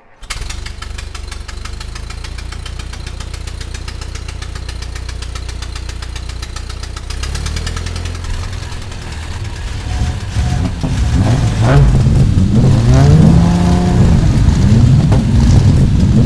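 A car engine idling with a steady low pulse, then revved repeatedly from about seven seconds in. The revs rise and fall in pitch and get louder toward the end.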